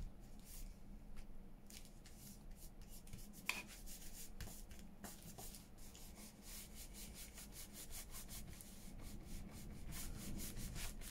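Faint rubbing on paper in many quick, repeated strokes, coming more densely in the second half, with one sharper tap about three and a half seconds in.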